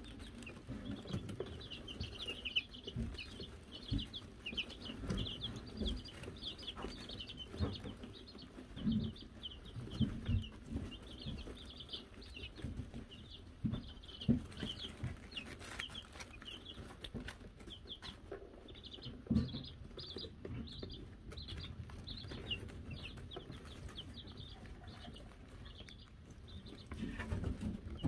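A brood of Wyandotte chicks peeping: many short, high chirps that thin out past the middle and pick up again near the end. Under them are scattered soft thumps and rustling in the wood-shaving bedding. The hanging bell is not rung.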